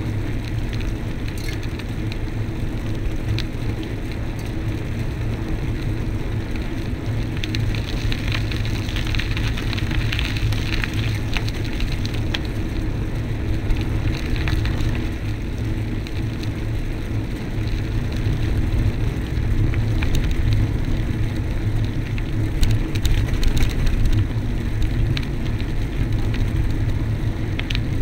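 Bicycle riding along a rough, gritty lane: a steady rumble from the tyres and frame with a grainy crackle and scattered small clicks.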